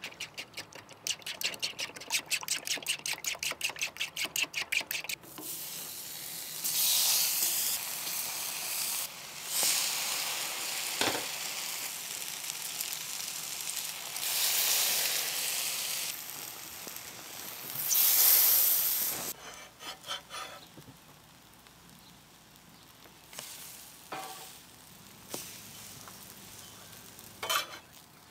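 Quick rhythmic stirring strokes for a few seconds, then French toast sizzling in a hot pan, the sizzle swelling and fading several times, with a sharp knock about eleven seconds in. Quieter scattered clicks of utensils follow in the last part.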